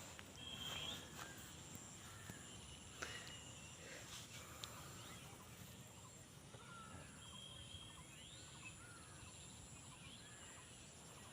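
Faint background hush with scattered small bird chirps and a few soft clicks.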